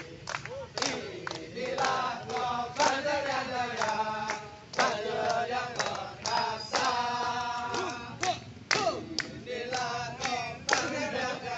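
A group of men singing together in chorus and clapping their hands, with sharp claps falling throughout.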